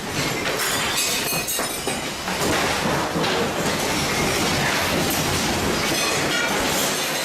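A house shaking in a magnitude 8.8 earthquake: a continuous loud rumble with dense rattling and clattering of the building and its contents.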